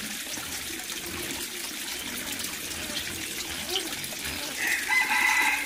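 Water trickling steadily into a round brick water tank, welling up in the middle of its surface. Near the end a short, high-pitched call lasting about a second rises over it.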